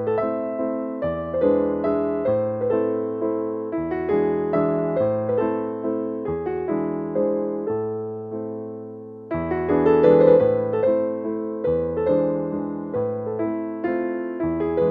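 Background music: a gentle electric piano playing a melody with chords, with a short break about nine seconds in before the next phrase begins.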